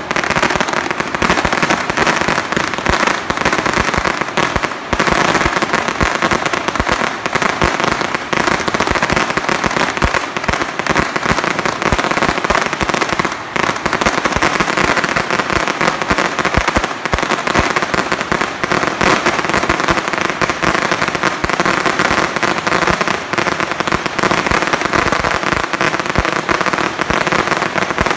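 Fireworks going off nonstop: a dense, unbroken stream of rapid bangs and crackles.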